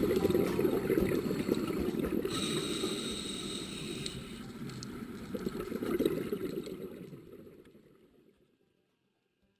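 Water gurgling and sloshing, fading out to silence about eight seconds in.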